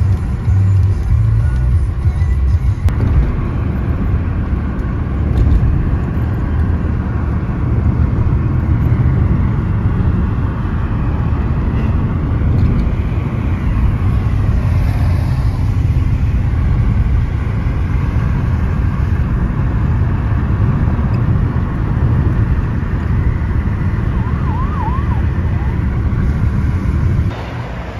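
Steady low road rumble inside a moving car's cabin, the tyres running on a wet highway.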